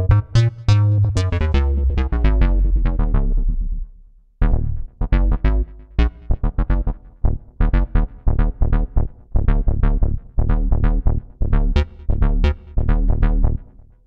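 Korg M50 synthesizer playing its 'Woody Syn Bass' preset: a bass line of short, plucked notes with a deep low end. It breaks off briefly about four seconds in, then goes on as a quick run of staccato notes.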